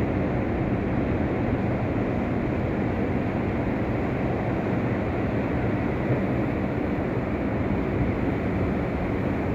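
Rough sea surf breaking on the shore: a steady, deep roar of waves with no single crash standing out.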